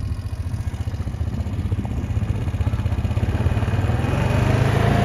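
A motor vehicle running as it drives along a paved road, with a low, fluttering engine pulse that slowly grows louder.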